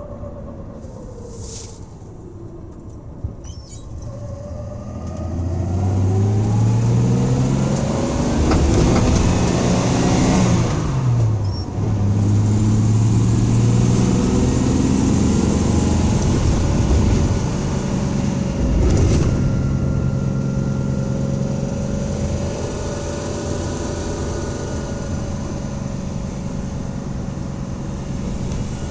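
1984 Dodge van engine accelerating hard, probably at wide-open throttle, with a possible misfire the owner is trying to pin down. The engine note climbs, drops sharply at a gear change about ten seconds in, climbs again, then settles to a steady cruise that slowly eases off.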